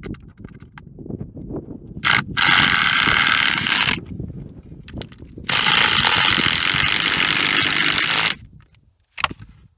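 Cordless power driver running in two bursts, the first about two seconds and the second about three, with a rattling, ratchet-like sound. Low knocks and handling noise come between the bursts.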